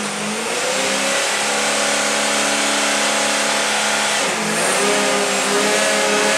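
Megabot Mk. III's LS3 V8 engine running at raised revs under the load of its hydraulic pumps as the system builds pressure. It climbs to a steady high pitch and holds it, with a brief dip about four seconds in.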